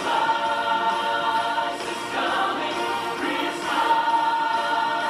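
Recorded choir singing with musical accompaniment, played back through a portable CD player.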